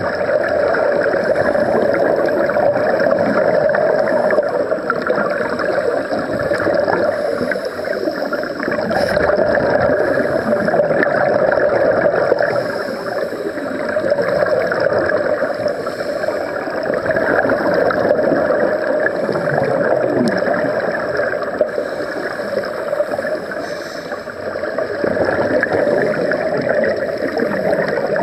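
Exhaled bubbles from scuba regulators gurgling underwater, a continuous bubbling rush that swells and eases every few seconds.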